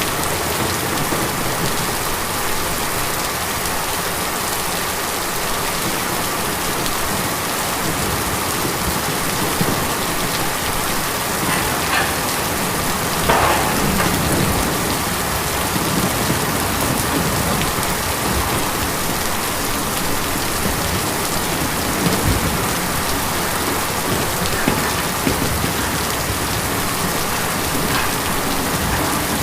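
Steady rain falling on a tin roof, with a few louder drops striking now and then.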